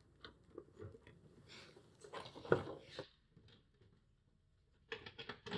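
Handling noise from a mini-split air conditioner's plastic indoor unit being lifted and hung on its wall mounting bracket: light knocks and rustling, a sharper knock about halfway through, and a quick run of clicks near the end.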